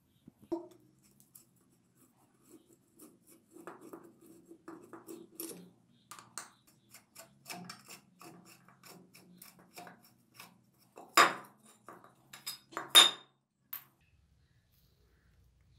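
Steel screwdriver scraping and prying at the metal side cover of an old air compressor pump's crankcase: many small metal clicks and scrapes, with two louder metal clacks near the end as the cover is worked loose.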